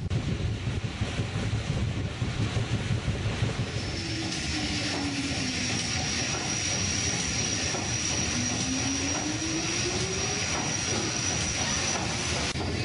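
PS Waverley's triple-expansion steam engine running at sea speed: a constant mechanical rush with a thin steady high tone over it from a few seconds in, and a low tone that slides down and then up in pitch. The first few seconds are rougher, with the level pulsing.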